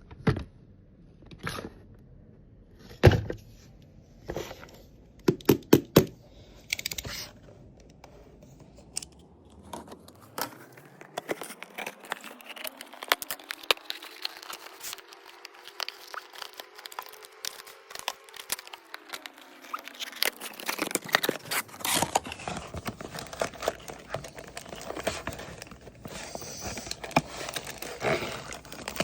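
Packaging of a 1:64 die-cast toy car being handled and opened by hand: a few separate taps and clicks, then from about ten seconds in a dense run of tearing, scraping and crinkling of card and plastic.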